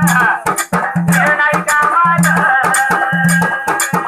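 Dhangari folk music: a dhol beaten in a driving rhythm of about three deep beats a second, with bright metallic strokes between the beats and a high wavering melody above.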